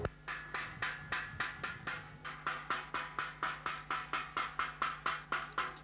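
A drum beaten in a fast, even beat of about five sharp strokes a second, over a steady low hum.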